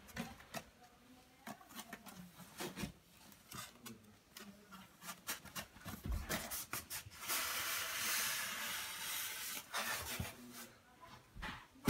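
Rustling and rubbing of the thin white protective wrapping as it is handled and slid along an iMac, with scattered small taps and crinkles. From about seven seconds in, a steadier rubbing hiss lasts a few seconds.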